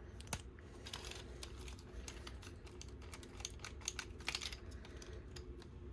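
Faint, irregular small plastic clicks and rattles of a toy sword being handled, its moving parts shifting.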